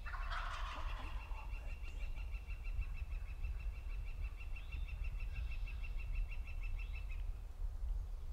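A wild turkey gobbler gobbles once, a short rattling burst about a second in. Over a steady low rumble, a long, even, high-pitched trill runs until near the end.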